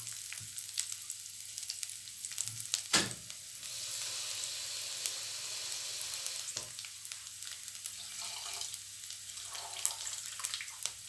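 Chopped garlic sizzling and crackling in hot oil in a metal frying pan, with a sharp knock about three seconds in.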